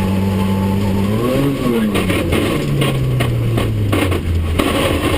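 Rally car engine running at a steady pitch, rising briefly about a second in, then dropping lower and fading out. From about two seconds in there is a run of sharp knocks and clatter.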